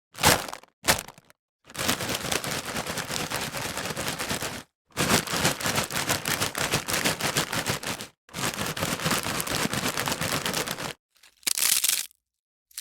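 Potato chips being crunched: two short sharp crunches, then three long stretches of dense, fast crackling, each about three seconds, then two more short crunches near the end.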